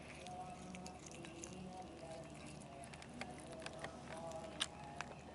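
Cats chewing and crunching cooked chicken meat and bones off a plate: small irregular clicks and crunches, with a few sharper ones later on.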